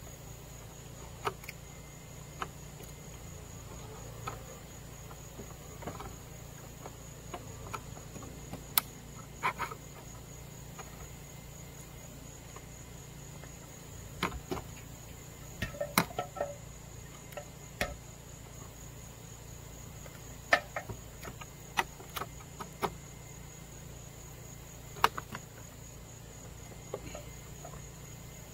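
Insects calling in one steady high-pitched tone, with scattered sharp clicks and knocks from hands working a metal gutter and its perforated metal gutter guard.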